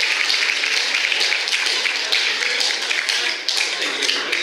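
Audience applauding: a dense patter of many hands clapping that thins out near the end.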